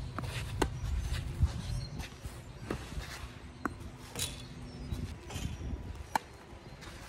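Tennis rally: a string of sharp racket-on-ball strikes and ball bounces a second or so apart, the loudest strike about six seconds in, with footsteps shuffling on the clay court between shots.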